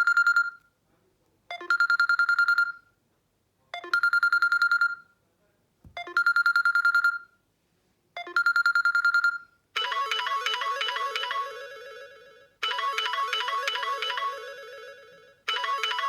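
Samsung Galaxy Note 3 Neo ringtones. First a trilling electronic ring in short bursts about every two seconds, then about ten seconds in a switch to a melodic ringtone, a short phrase of notes repeating about every three seconds.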